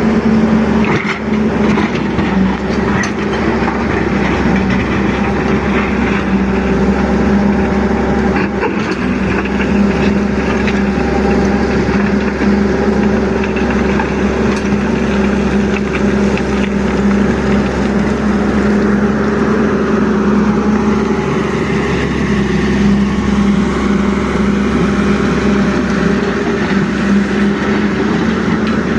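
Excavator's diesel engine running steadily at a constant pitch, with a higher whine that dips and rises about two-thirds of the way through.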